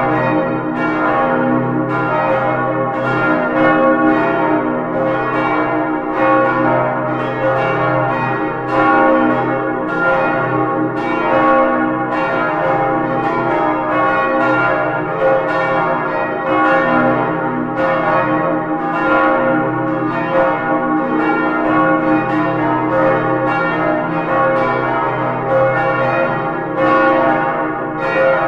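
Full peal of five swinging church bells, cast in 1947 by the Albert Junker foundry in Brilon and tuned to D♭, E♭, F, A♭ and B♭, heard from inside the bell chamber. The clappers strike in quick, overlapping succession, and each note rings on beneath the next strike in a dense, continuous sound.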